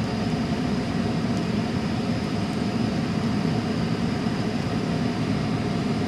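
Steady low road and engine rumble inside a moving vehicle's cabin.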